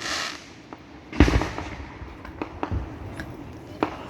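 Fireworks exploding: the tail of a crackle fades at the start, a loud bang comes about a second in and dies away, and several smaller pops follow.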